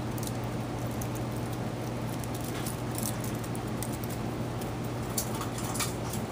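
Small puppies scrabbling as they play-fight, their claws clicking and pattering in quick, irregular bursts on concrete and plastic mesh, over a steady low hum.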